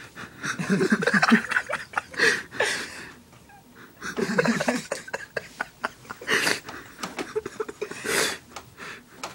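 Hushed giggling and snickering from people, in short breathy bursts every second or two.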